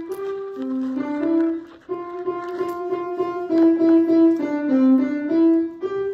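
Piano playing a simple melody of single notes that step up and down, some notes struck in quick repetition.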